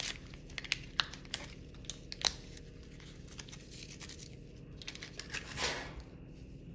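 Sterile polyglactin 910 suture packet being torn open and handled: sharp crinkles and crackles of the wrapper in the first two seconds or so, then a softer rustle near the end.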